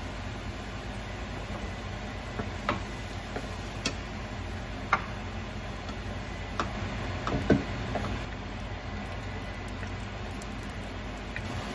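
A wooden spoon clicking and knocking against a nonstick frying pan as fried potato cubes are scooped out, a few scattered taps with the loudest about seven and a half seconds in, over a steady low background noise.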